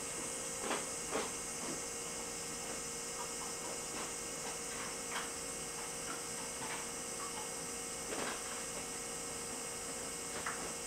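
Steady electrical hum with a constant high hiss, broken by a few faint clicks and knocks: two in the first second and a half, and others around five and eight seconds in.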